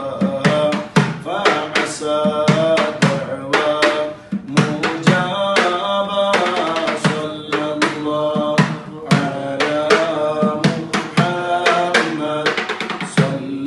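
Male voices singing an Arabic baith (devotional praise song), with a hand drum struck several times a second beneath the singing.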